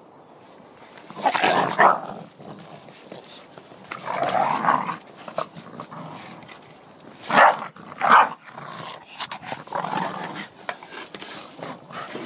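A blue Staffordshire bull terrier and a brindle dog growling and barking in several loud, irregular bursts while play-fighting over a stuffed toy tiger.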